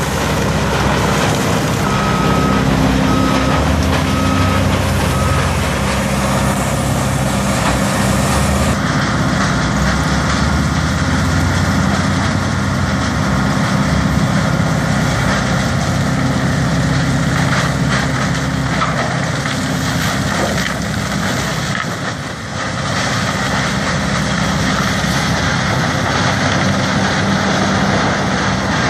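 Tub grinder's heavy diesel engine running under load while grinding oversize bark screenings, a steady loud drone of engine and grinding. A few seconds in, a backup alarm beeps about once a second, four times.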